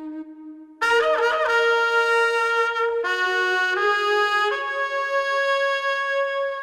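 A solo wind instrument plays a slow melodic phrase: a loud note about a second in that bends and wavers in pitch, then steps through a few long held notes, the last fading away near the end.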